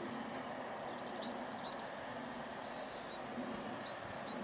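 Steady vehicle-engine rumble, with a few short high bird chirps over it, about a second and a half in and again near the end.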